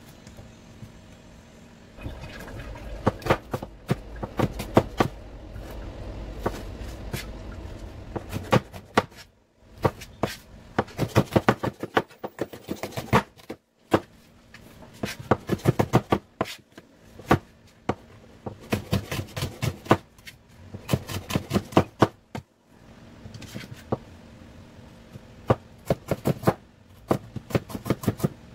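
Chef's knife chopping bell peppers and carrots on a thin plastic cutting mat over a stone countertop: quick runs of sharp taps of the blade on the board, with brief pauses between runs.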